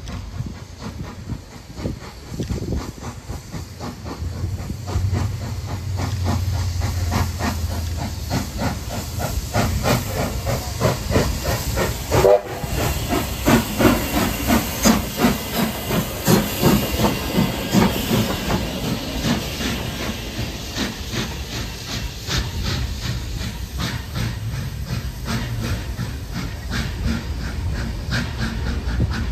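Steam locomotive working a train, its exhaust beating rhythmically over a steady hiss of steam, loudest about halfway through.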